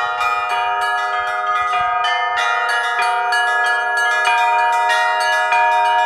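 Russian Orthodox chapel bells rung by hand (zvon): quick strokes on several small bells, about three or four a second, over the ringing of a larger bell, all blending into one continuous peal.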